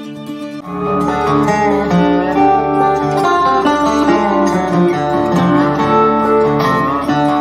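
Country-style music led by acoustic guitar, which gets fuller and louder about a second in.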